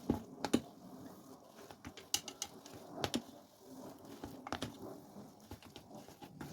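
Ramen noodles in a thick sauce being stirred and mixed in a pot: wet squishing and slapping, with sharp clicks of the utensil against the pot now and then.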